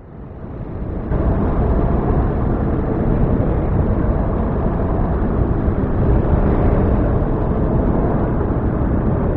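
A loud, steady rumbling roar that fades in over about the first second and then holds level.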